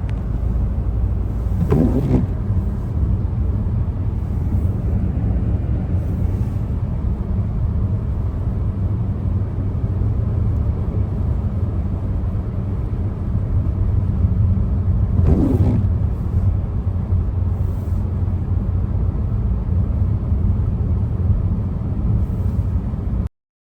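Steady low road-and-engine rumble heard from inside a moving car. Twice, about two seconds in and again about fifteen seconds in, a brief sound falls in pitch. The sound cuts off just before the end.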